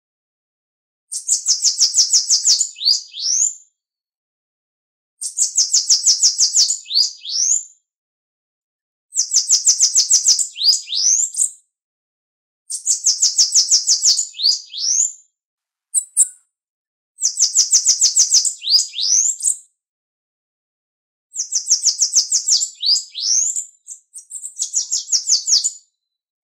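Bananaquit (Coereba flaveola) singing its song over and over, about every four seconds, six times. Each song is a fast run of high, thin notes ending in a few rising slurred notes, with silence between songs and one brief extra note about two-thirds of the way through.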